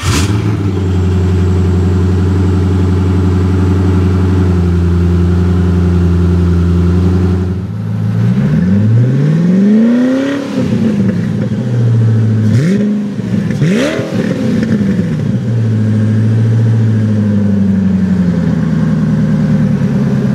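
Koenigsegg CCXR's twin-supercharged V8 idling just after start-up. About eight seconds in it is revved once, rising and falling over about two seconds, then blipped twice more in quick succession before settling back to idle.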